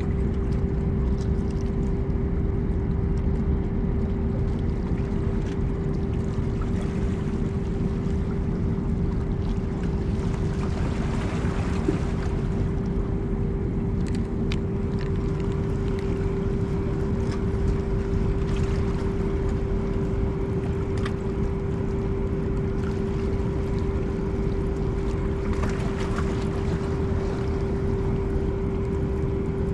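Steady drone of a large ship's engines, a low rumble with one constant hum that never changes.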